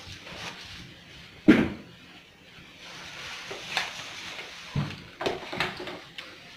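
Workshop knocks and clunks of tools and parts being handled: one loud knock about a second and a half in, then a few smaller ones bunched near the end.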